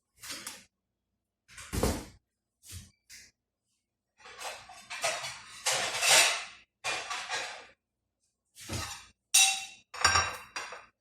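Kitchen clatter in bursts: cookware and utensils knocking, clinking and scraping, with a longer stretch of scraping and rattling about four to eight seconds in.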